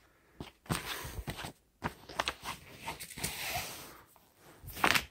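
Handling noise: a paper booklet rustling and hands rubbing over a fabric mattress cover in short irregular scrapes and clicks, with one louder scrape near the end.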